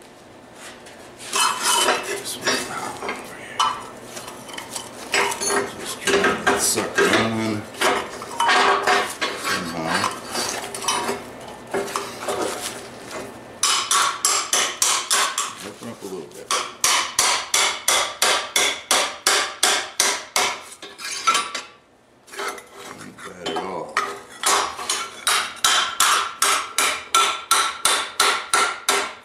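Hand hammer striking sheet steel on a steel table, shaping it into a tube. The blows come irregularly at first, then settle into a fast, even run of about four a second, with a short break about two-thirds of the way through.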